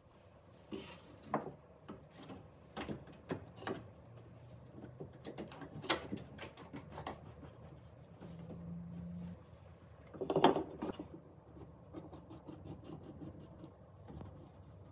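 Screw-handled bar clamps and a wooden cleat being handled and tightened against wooden benchwork: scattered clicks and knocks, with a louder knock about ten seconds in.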